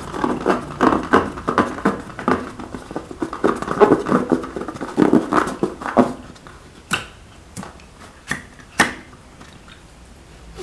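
Slime being squeezed and worked by hand: a run of wet squelches, about three a second, for some six seconds, then four sharp clicks.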